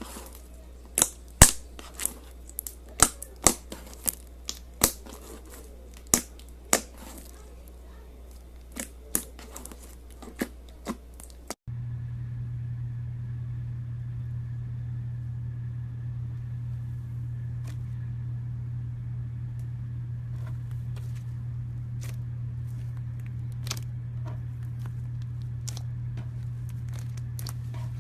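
Slime being squeezed and stretched by hand, making irregular sharp popping clicks as air pockets burst. About eleven seconds in the sound cuts to a steady low hum, with only faint scattered clicks over it.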